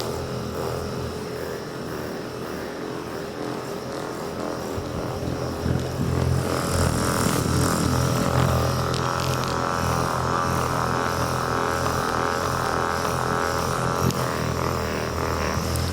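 Handheld electric massager running steadily on a patient's back to loosen him up before a chiropractic adjustment. It gets louder and brighter about six seconds in, then eases off slightly near the end.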